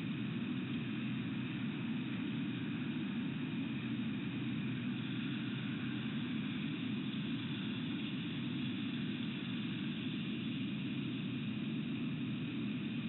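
Steady background drone with a hiss above it, unchanging throughout, with no distinct calls or knocks.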